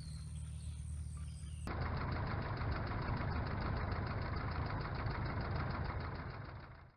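Replica Boeing F4B-2 biplane's engine running, first as a steady low hum across the airfield. About a second and a half in, it switches suddenly to a louder, rough engine and wind noise from a camera mounted on the plane, which fades out at the end.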